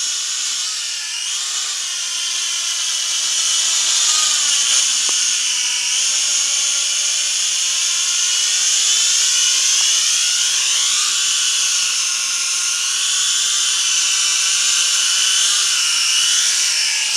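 W606-5 Flanker toy quadcopter's four motors and propellers whining in flight, the pitch drifting up and down as the throttle changes.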